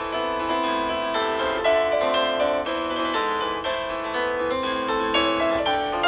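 Background music: a light keyboard melody of held notes.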